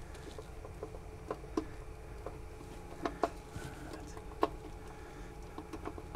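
Scattered light clicks and ticks from wire ends with crimped terminals being handled and fitted at a variable-frequency drive's terminal block, a few sharper ones about three and four and a half seconds in, over a steady low hum.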